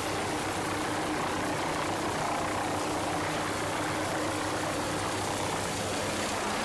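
MQ-8B Fire Scout unmanned helicopter hovering, its turboshaft engine and rotors making a steady, even running noise with a low hum underneath.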